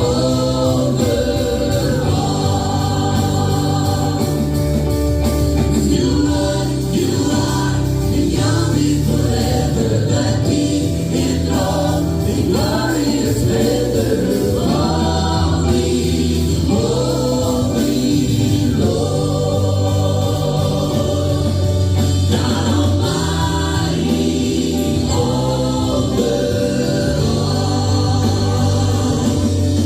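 Gospel choir singing over sustained instrumental bass notes.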